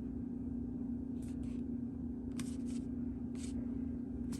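A few faint, short rustles of paper pages being handled, over a steady low hum.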